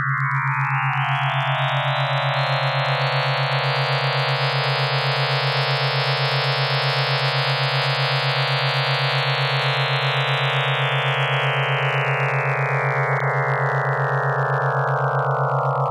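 Synthesized test audio said to carry a hidden image or word: a rapidly pulsing low hum under a dense chord of many steady tones. The chord spreads higher and then closes down toward one mid tone near the end.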